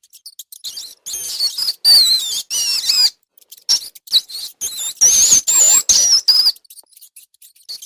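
Rats squeaking: two bouts of high, wavering squeaks, about a second in and again about five seconds in, with short clicks between them.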